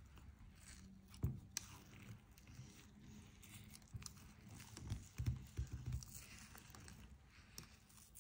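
Metal ice cream scoop scraping through vegan pistachio ice cream in a tub, a faint scraping with small clicks, and a few soft knocks about a second in and again around five to six seconds in.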